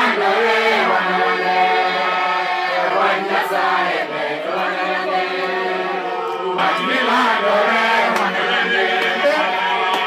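Congregation singing together in a chant-like hymn, many voices at once.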